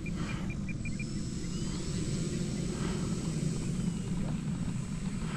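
Four-cylinder engine of a radio-controlled model airplane droning steadily in flight at a distance, over a low rumble of wind. Five short high beeps sound in quick succession in the first second.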